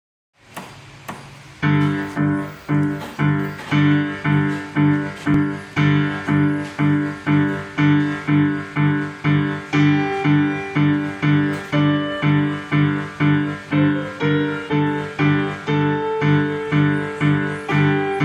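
Digital piano playing a beginner piece in the G five-finger position: a steady repeated low left-hand figure of about two notes a second under a simple right-hand melody. The playing begins about a second and a half in.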